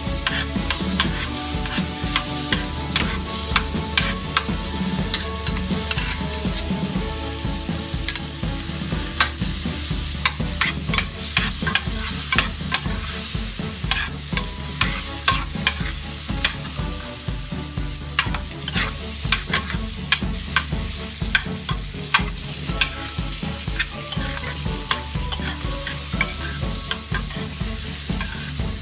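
Sliced onion frying in foaming melted butter in a stainless steel pan, sizzling steadily, while a spatula stirs and clicks and scrapes against the pan many times.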